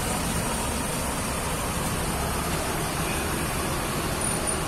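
Steady bus engine and traffic noise.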